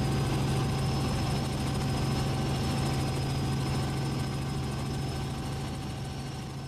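Helicopter heard from inside the cabin in flight: a steady low rotor and engine drone with a constant high whine. The sound fades out over the last couple of seconds.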